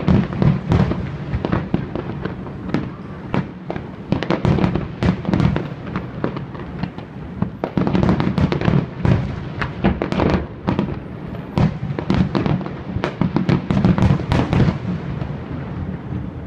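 Aerial fireworks display: a continuous run of shell bursts and crackling reports over a low rumble, coming in thicker volleys every few seconds and thinning out near the end.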